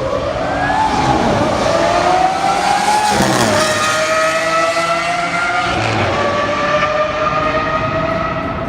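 Supercar engine accelerating, its note rising over the first second and climbing gently, with a brief drop in pitch about three seconds in, then holding a steady note that slowly falls.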